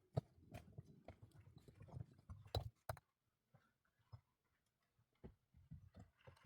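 Irregular light knocks and clicks, many in the first three seconds, then only a few scattered ones.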